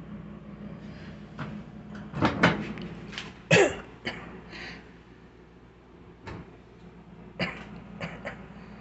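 Microwave oven door being handled: a run of clicks and knocks from the door and its latch, the loudest about three and a half seconds in.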